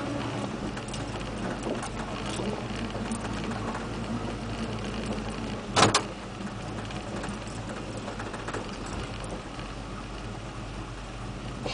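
Lifted 4x4 pickup's engine running steadily at low speed, heard from inside the cab, with small rattles and clicks from the cab as the truck rolls over rough ground. About six seconds in, one sharp loud bang cuts through.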